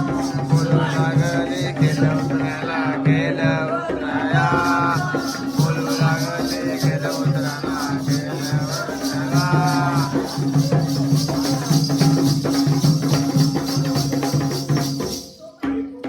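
Jakhadi folk music: a singer over a steady low drone, with jingling percussion keeping a fast, even beat. It breaks off for a moment near the end, then starts again.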